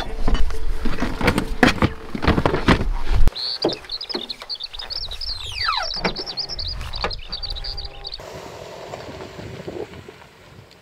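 Knocks and thumps of camping gear being loaded into the cargo area of a Land Rover Defender 110. After an abrupt change about three seconds in, a bird sings a long run of rapid high chirps, with a few falling whistles, until it stops about eight seconds in.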